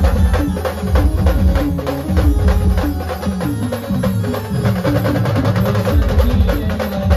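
A live Indian band playing a song, driven by fast, heavy drumming and percussion with a melody line over a deep bass.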